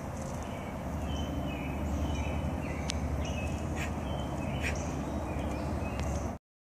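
Small birds chirping in short repeated notes over a steady low rumble, with a few sharp light clicks in the middle; the sound cuts off suddenly near the end.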